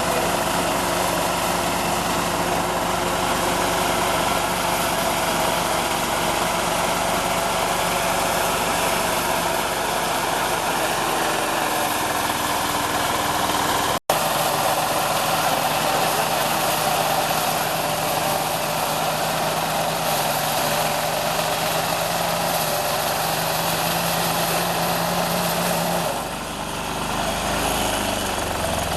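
GANGYI GY4L-0.6 mini combine harvester running with a steady engine drone. It cuts out for an instant about halfway through. Near the end the engine pitch and level dip briefly, then pick up again.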